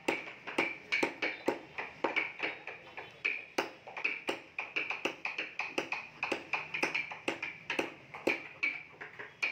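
A rapid, irregular series of sharp taps, three or four a second, each with a short bright ring.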